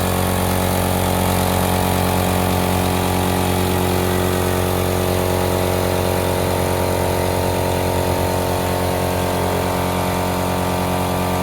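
30-litre piston air compressor running steadily, its motor and pump giving an even hum with no change in speed.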